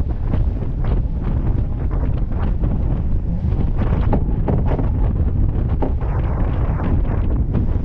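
Wind buffeting the microphone, with the rush and splash of water along the hull and wake of a McConaghy/Mills 41 racing yacht sailing at speed. The sound is a steady, heavy rumble broken by many short splashes.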